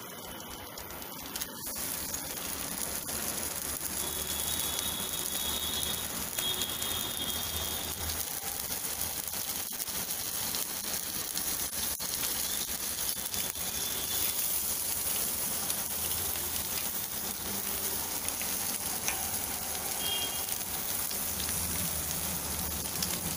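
Halved boiled eggs frying in hot oil in a pan: a steady sizzle with scattered crackles, which picks up about two seconds in.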